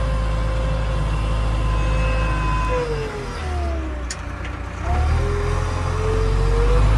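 JCB backhoe loader's diesel engine running as it drives, heard from inside the cab. About three seconds in the engine note falls away while the driver shifts gear, a click or two sounds from the lever, and the revs climb back up as it pulls again.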